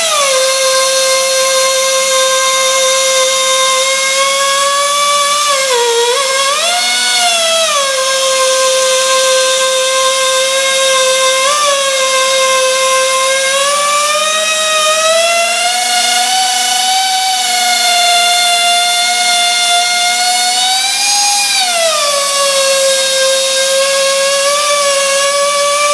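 Motor of a LarsLap Model C1 valve grinder running with a steady whine, its pitch dipping and recovering a few times, most clearly about six seconds in and again about twenty-one seconds in.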